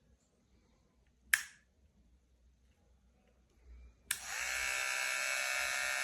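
A sharp plastic click, then the GLAKER cordless hair clipper switched on with a click, its motor spinning up and buzzing steadily for about two seconds before it cuts off.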